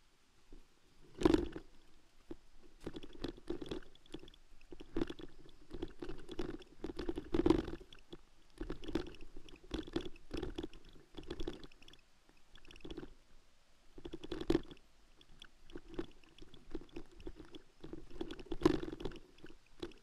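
Irregular thumps and light rattles, one or two a second, of a bicycle jolting over a rough dirt trail.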